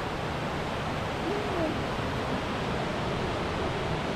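Steady rush of fast-flowing water: an even, unbroken noise that holds at one level.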